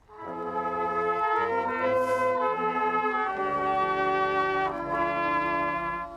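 Brass band playing a carol in sustained chords, moving from chord to chord. The phrase ends just before the end, with a brief break before the next one begins.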